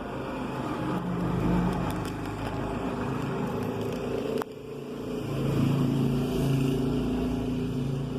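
A motor vehicle's engine running, its pitch shifting over several seconds. There is a sharp click and a sudden dip in level about four and a half seconds in.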